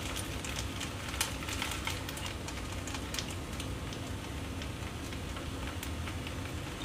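Fried rice vermicelli sizzling in a wok on the hob: a steady hiss with scattered small crackles and pops.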